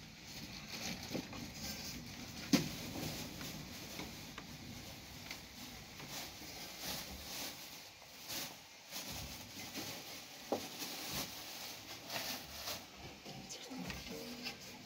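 Household handling noise: cloth rustling, soft footsteps and scattered light knocks and clicks, with one sharp click about two and a half seconds in.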